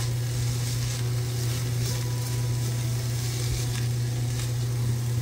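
Diced onions sizzling as they sauté in an Instant Pot's stainless steel inner pot, stirred with a silicone spatula that scrapes lightly against the steel. A steady low hum runs underneath.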